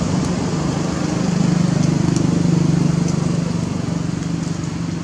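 A motor engine running steadily nearby, a low, even hum that swells a little in the middle, with a few faint ticks over it.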